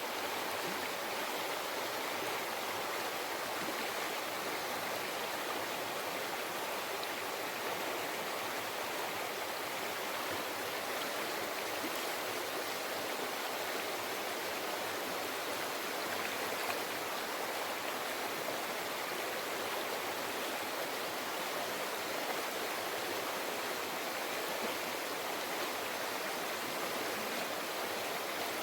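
River flowing over rocks: a steady rush of water, even and unbroken.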